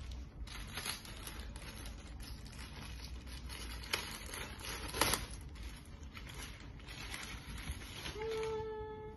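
Clear plastic wrapping bag crinkling and rustling as it is handled and pulled open, with a couple of louder crackles about four and five seconds in. A short steady tone sounds near the end.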